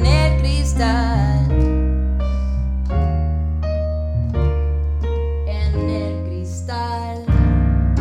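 Music: electric piano chords held over a deep bass, changing every second or so. A wordless vocal line wavers over them about the first second, and a louder new chord comes in near the end.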